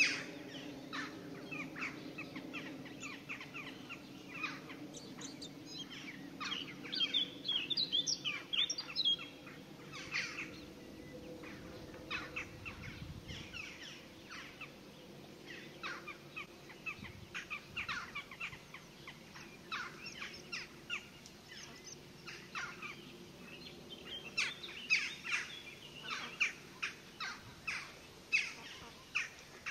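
Songbirds chirping and singing, many short high calls that come in busy flurries, over a faint steady low hum.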